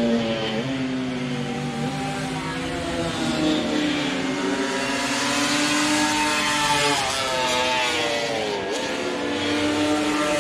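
Classic racing motorcycle engines at full throttle on a circuit, several bikes heard at once, each note climbing in pitch and dropping sharply at every upshift.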